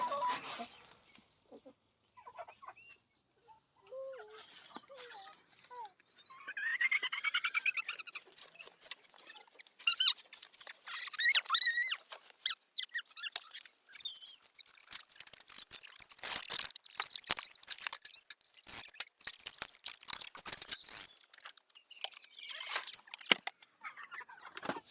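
Kienyeji chickens making short, wavering calls amid scattered clicks and scrapes, busiest in the second half.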